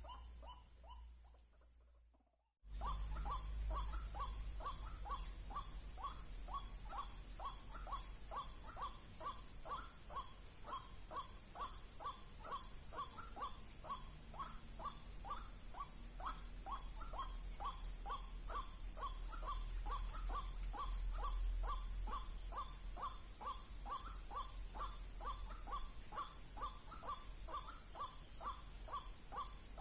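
White-breasted waterhen (ruak-ruak) calling: one short call repeated over and over, about two to three a second. It starts suddenly after a brief silence about two and a half seconds in, with a steady high hiss behind it.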